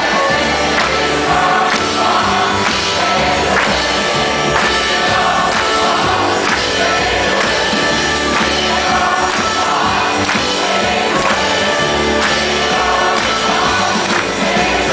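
Live band playing with a large crowd of audience voices singing a repeated refrain along with it, like a choir.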